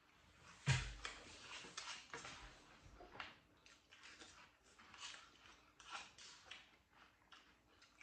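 Crunchy breakfast cereal being chewed in milk, with light spoon clinks against the bowls: many short crackly crunches in an irregular run. A single thump sounds near the start.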